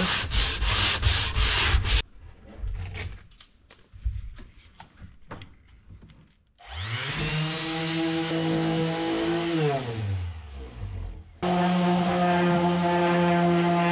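Quick hand-sanding strokes along the edge of a wooden door, then a few lighter scrapes. A random orbital sander then spins up, runs on the door panel and winds down, and a steady power-tool hum cuts in abruptly near the end.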